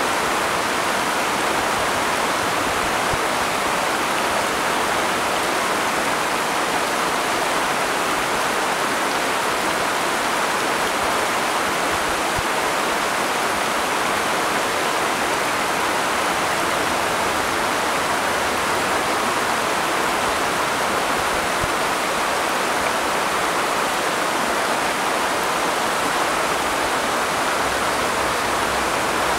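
Steady rush of flowing water, an even hiss without breaks or changes.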